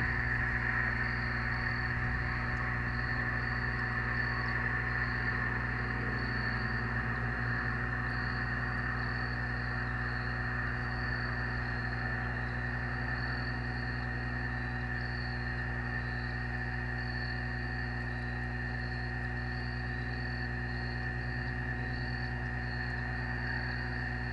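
Crickets chirping in an even, steady pulse over a constant hiss and a low hum.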